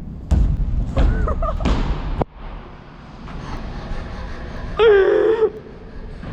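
Low rumble and a few knocks from a bike being ridden on the concrete ramps, with wind on the microphone, cutting off abruptly about two seconds in. About five seconds in comes a short, loud shout.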